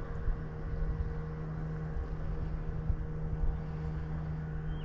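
Kayak under way by pedal drive: a steady low hum over an uneven rumble of wind and water noise.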